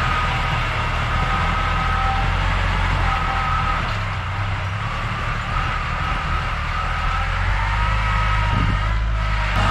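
Kubota L3301 tractor's three-cylinder diesel engine running steadily, a low drone with a higher whine that drifts up and down in pitch.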